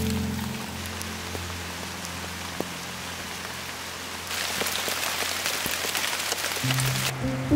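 Steady rain falling, an even hiss that grows louder about four seconds in and then cuts off abruptly near the end. A held low music note fades out at the start, and soft music comes back in near the end.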